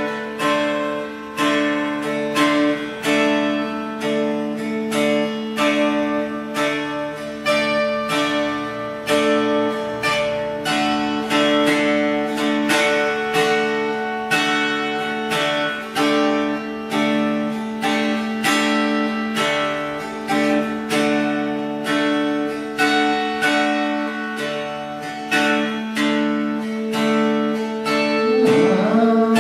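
Acoustic guitar played solo: plucked melody notes at about two a second over low notes left ringing underneath. Near the end the low notes slide upward in pitch.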